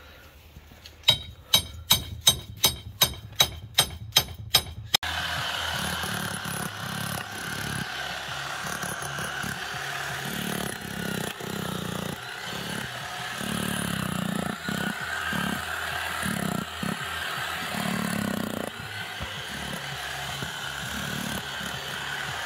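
A quick run of about a dozen sharp knocks, about three a second. Then, after an abrupt cut, a DeWalt electric breaker hammer runs steadily with a chisel bit, chiselling out the concrete footing of a rotten fence post.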